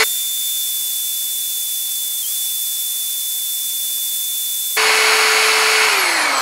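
A cordless drill spins a Stirling engine backwards, driving it as a heat pump so that its cylinder end warms. For the first five seconds the drill's whine is sped up eightfold in a time-lapse and heard as one high steady tone. It then returns at its normal pitch and winds down near the end as the drill slows.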